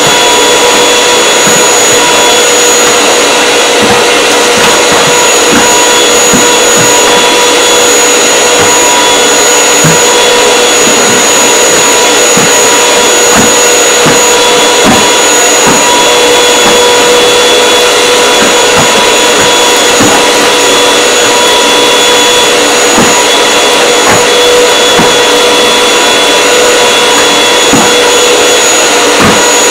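Canister vacuum cleaner running steadily with a constant motor whine, its floor nozzle swept back and forth over carpet with irregular low bumps.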